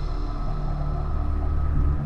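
Dark, brooding film-score music: low tones held steady, with fainter sustained notes above them.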